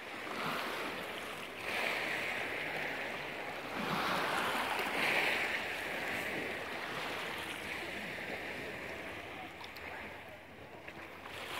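Small sea waves lapping and washing over a pebble shore in shallow water, swelling and easing in surges every second or two.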